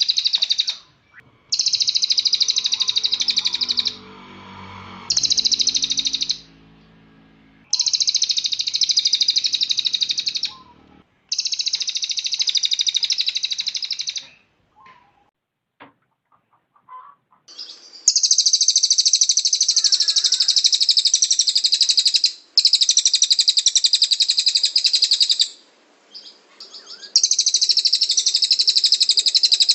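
A cililin songbird singing long bursts of rapid, high-pitched trilling 'tembakan', each lasting a few seconds, with short pauses between them and a longer break of a few seconds around the middle.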